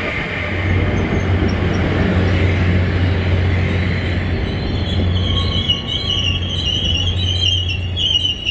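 Mugunghwa-ho passenger train coaches rolling into the station with a steady low hum and rumble; about halfway through, a high, wavering squeal from the running gear starts and keeps on.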